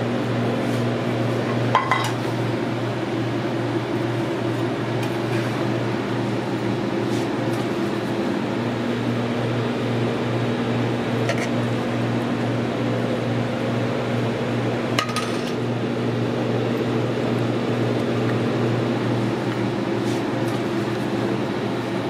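Steady hum of kitchen equipment, with metal utensils clinking sharply against a pan and a steel pot twice, about two seconds in and again about halfway through, and a few lighter clinks between.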